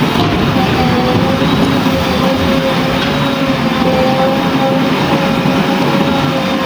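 Diesel engine of a JCB 3DX backhoe loader running steadily under work, with a steady whine over the engine noise.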